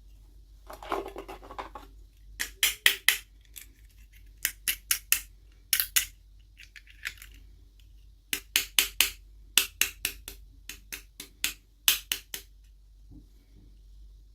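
Doll packaging being opened by hand. A brief rustle about a second in is followed by repeated groups of three or four quick, sharp strokes.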